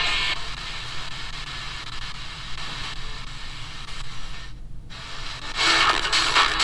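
Static hiss from the QFX R-35 portable radio's small speaker as it is tuned between FM stations. The sound cuts out for a moment about four and a half seconds in, and near the end a station with music comes in loudly.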